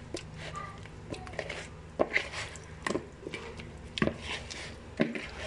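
Hands mixing chicken drumsticks with oil and spice masala in a bowl: wet squelching and rubbing, with sharp knocks of the pieces against the bowl about once a second.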